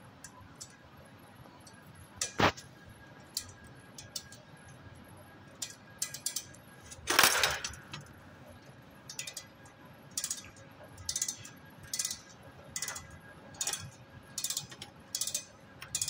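Metal clicks and clinks from a hand working the valve and hose fittings on a refrigerator compressor's copper service line. A louder clatter comes about seven seconds in, and over the last six seconds there is a run of evenly spaced clicks, about one a second.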